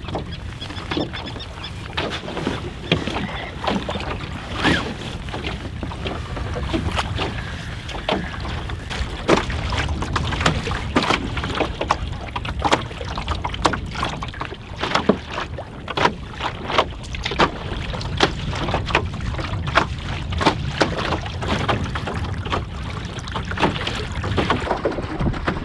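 Water splashing and slapping against the hull of a wooden cedar-strip canoe beating into the wind through choppy water: irregular sharp splashes, a few a second, over a steady low wind rumble on the microphone.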